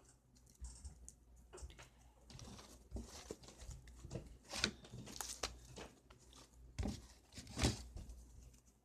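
Half-set fluffy slime, still partly shaving cream, being rolled and pulled in the hands: faint, irregular sticky crackles and squelches, with a few sharper snaps in the second half.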